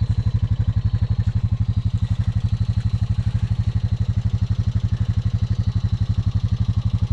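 Honda Rubicon ATV's single-cylinder engine idling steadily, an even rapid putter of about ten beats a second.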